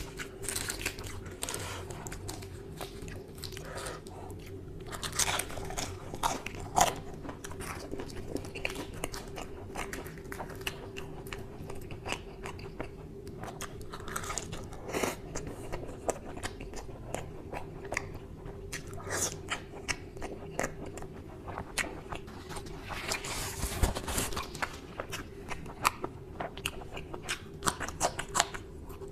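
Close-miked mouth sounds of a man biting and chewing luchi (puffed fried bread) dipped in dal and mutton curry: a steady run of small crackly clicks, with louder bursts of crunching about six seconds in and again near twenty-four seconds.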